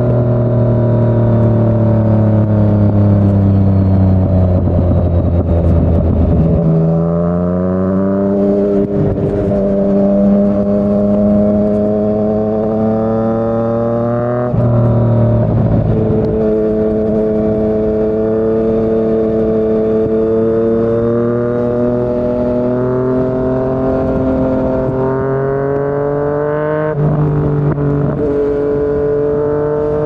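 Yamaha MT-09's inline three-cylinder engine breathing through a Yoshimura R55 slip-on exhaust, running under way. The revs drift slowly up and down, with sudden jumps in pitch at gear changes about six seconds in, about fourteen seconds in (a sharp drop) and near the end.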